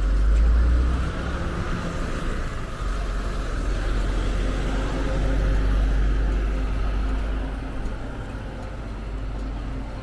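Coach bus passing close by, its engine and tyres rumbling, loudest about six seconds in, then fading as it pulls away.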